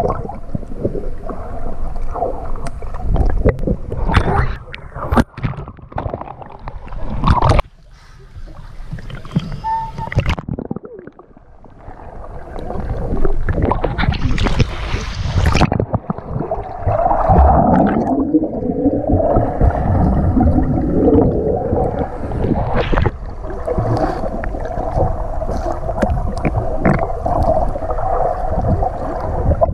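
Pool water gurgling and splashing around a waterproof action camera as it moves between underwater and the surface, with swimmers' kicks and strokes knocking and bubbling close by. A brighter burst of surface splashing comes about halfway through.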